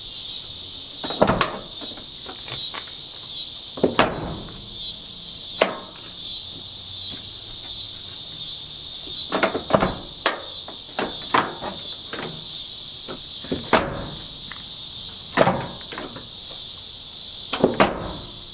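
A steady, high-pitched insect chorus, with about a dozen irregular knocks and taps from work on a pickup truck door and its new rubber weatherstripping.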